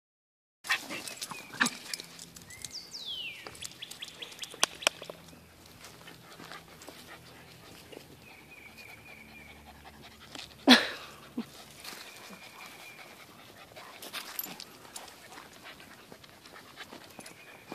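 Dogs panting while they play, with scattered light clicks and scuffs and one sharp, louder sound about ten and a half seconds in.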